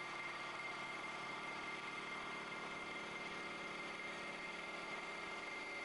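CNC wood-turning lathe running steadily as it turns a baseball bat, a constant machine noise with a steady high whine.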